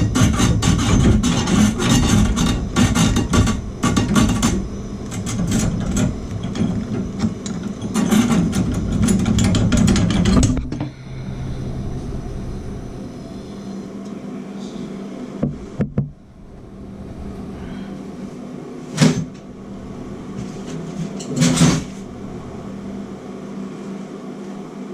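Handheld gas torch burning with a crackling roar while heating the old shower valve, shut off about ten seconds in. After that comes a lower steady hum with two sharp knocks.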